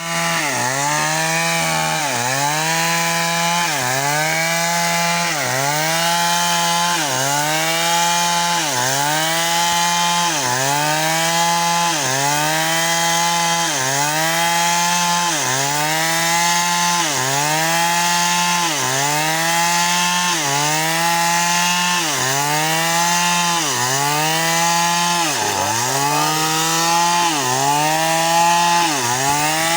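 Chainsaw cutting wood, its engine under load with the pitch dipping sharply and recovering in a steady rhythm about every second and a half.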